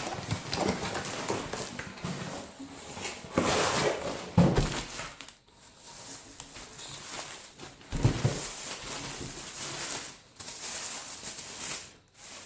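Packaging being unwrapped and handled: crinkling and rustling wrap, with two dull thumps about four and eight seconds in as parts are set down.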